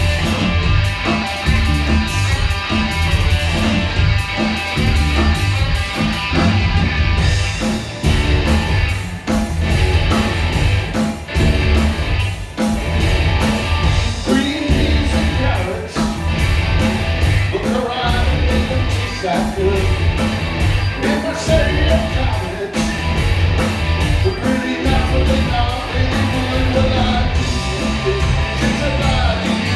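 Rock band playing live: electric guitar, electric bass and drum kit, with a male lead vocal sung over them.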